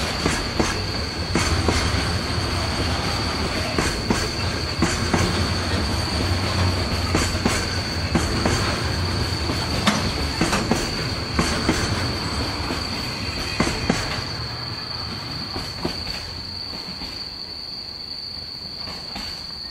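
Container wagons of a freight train rolling past, their wheels clattering and clicking over the rail joints. A steady high-pitched tone runs throughout. The rumble fades away about sixteen seconds in as the last wagon passes.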